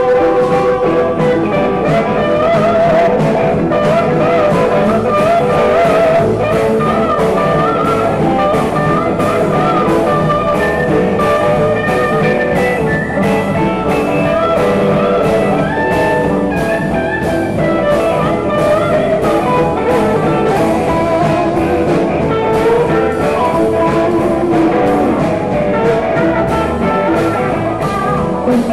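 Live band playing a blues-style number: electric guitar lines over a drum kit keeping a steady beat.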